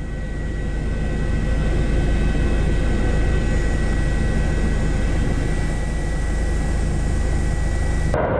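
Steady engine drone with a deep rumble and a constant high whine, like an aircraft in flight. It changes abruptly near the end.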